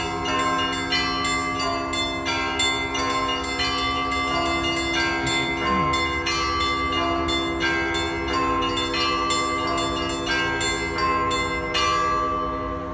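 Orthodox church bells in a full peal: small bells struck rapidly, about three strikes a second, over the steady hum of larger bells. The strikes stop near the end and the bells ring on, fading.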